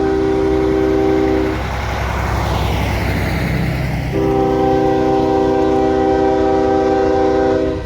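Diesel locomotive's multi-chime air horn sounding twice: a blast that cuts off about a second and a half in, then a longer one from about four seconds in to near the end, over the low rumble of the locomotive's engine.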